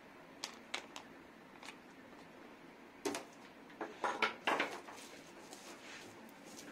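Bubble wrap wrapped around a gas stove rustling and crinkling under the hands. There are a few light clicks first, then short crackly bursts from about three seconds in.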